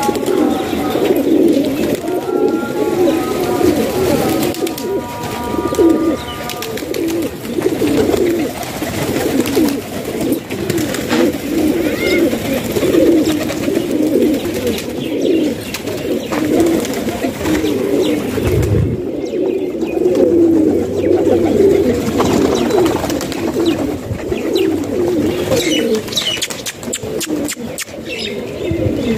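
A flock of domestic fancy pigeons cooing continuously, many birds' coos overlapping into a steady low warble.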